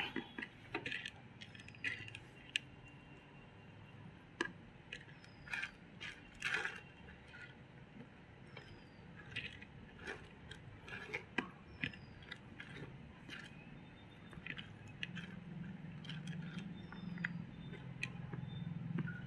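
Fingers mixing soft cooked rice with egg curry on banana-leaf plates: faint, scattered sticky clicks and squishes at an irregular pace, over a low steady hum that grows a little stronger near the end.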